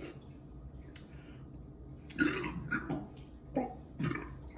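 A man belching after drinking beer: about four short burps, starting about two seconds in.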